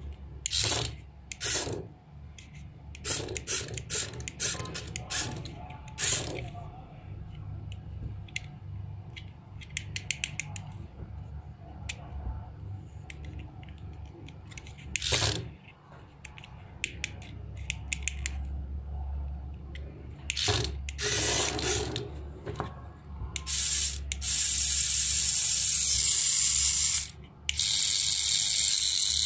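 Plastic clicks and rattles as the toy's infrared remote is handled. In the last few seconds the remote-control mantis toy's small geared motor starts and runs with a loud whirring rattle as its legs work, stopping briefly once in the middle.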